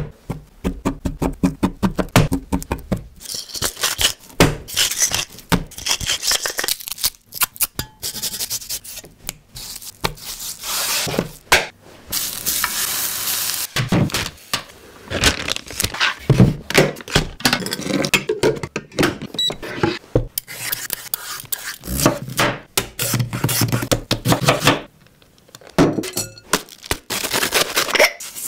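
Close-up food-preparation sounds: a run of sharp knocks and clinks of dishes and utensils, with rubbing and handling noises between them.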